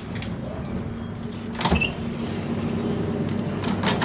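Interior of a DUEWAG B80D light-rail car: a steady electrical hum, with a sharp clunk about one and a half seconds in and another at the end.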